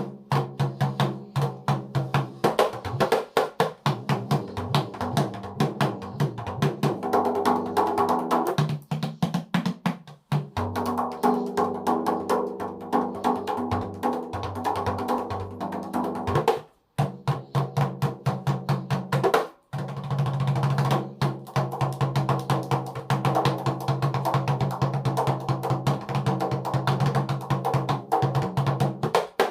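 Rebana dikir barat frame drums with pauh-wood shells struck by hand in a fast, continuous rhythm, the strokes ringing with deep sustained tones. The drumming breaks off briefly three times.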